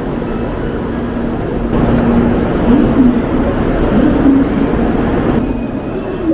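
Station platform ambience beside a standing shinkansen: a steady low rumble and hum from the stopped train. A louder rushing noise comes in about two seconds in and fades out near the end.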